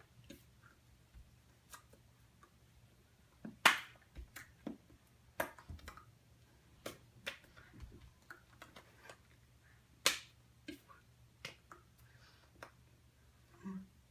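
Hands slapping and tapping against each other and the body while signing in American Sign Language: irregular sharp claps and clicks, the loudest a little under four seconds in and again about ten seconds in, over a faint low hum.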